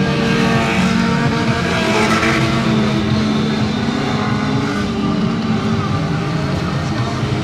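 Engines of several stock cars racing on a dirt track, running hard at high revs.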